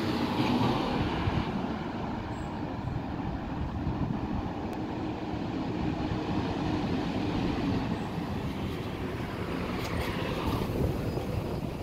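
Scania K230UB city bus approaching and pulling up close. Its five-cylinder diesel engine and tyres make a steady drone, with the engine tone fading about two-thirds of the way through as the bus slows to a stop.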